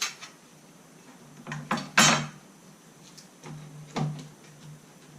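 A few irregular metallic clacks and knocks from handling the mechanism of an antique Corona typewriter, the loudest about two seconds in. The clacks come as he works a part that seems stiff and he chooses not to force it.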